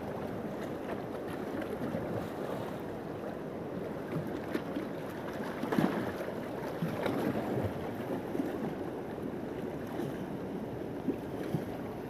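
A fast river rushing and lapping over rocks, with splashes and sloshing as a green bamboo tube is dipped in and filled with water; a few short knocks and splashes stand out, the sharpest about six seconds in.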